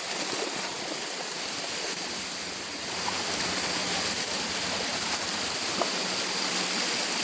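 Water rushing steadily over the rocks of a natural waterfall.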